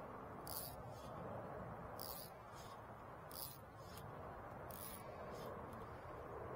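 Steady rush of river current flowing past the bank, with a scatter of short, high-pitched chirping hisses every half-second to second and a half.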